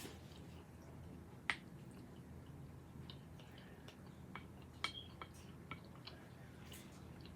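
Scattered wet mouth clicks and smacks of someone eating tuna salad close to the microphone, about eight in all, the loudest about a second and a half in and near five seconds, over a faint low hum.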